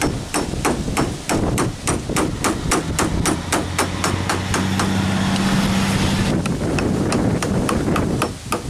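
Light, rapid hammer taps, about four a second and evenly spaced. A steady low hum joins for about three seconds in the middle.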